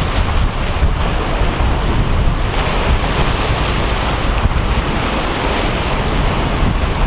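Sea surf washing and breaking over shoreline rocks, under a steady rush of wind buffeting the microphone with a heavy low rumble.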